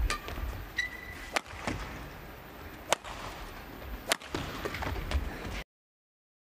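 Badminton rally: four sharp racket strikes on a shuttlecock, roughly one every one and a half seconds, over a low arena hum, with a brief shoe squeak on the court about a second in. The sound cuts off abruptly to silence near the end.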